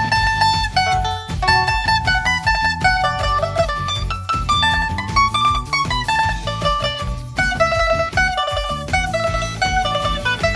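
Bowl-back mandolins in two overdubbed parts plucking a pop-song melody and harmony, in quick notes mixed with longer held notes, over a steady low accompaniment.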